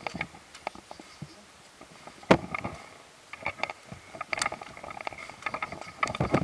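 Rustling and snapping of leaves and twigs in fallen storm-downed tree branches, irregular crackles with a sharp knock a little over two seconds in.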